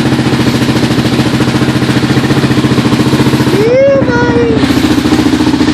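Suzuki LTR 450 quad's freshly rebuilt single-cylinder four-stroke engine idling steadily with an even, fast beat.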